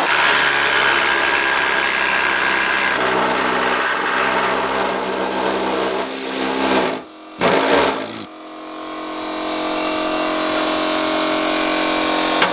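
Ryobi pneumatic air saw buzzing as its reciprocating blade cuts a round hole through a sheet-steel front guard. It stops about seven seconds in, gives one more short burst, and then only a quieter steady hum remains.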